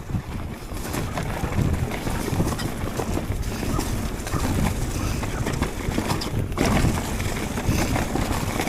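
Wind buffeting the microphone while a mountain bike clatters over a rough trail, with a constant rattle of small knocks.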